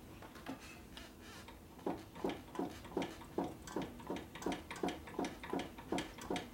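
Steady mechanical clicking, about three clicks a second, starting about two seconds in, as the Harley's engine is slowly turned over by hand to bring the timing mark up during ignition timing.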